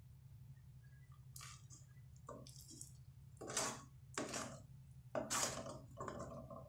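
A metal spoon stirring and scraping through Coca-Cola and Pepsi boiled down to a thick, sticky syrup in an aluminium pot, in a series of short sticky strokes that start about a second in and are loudest in the second half.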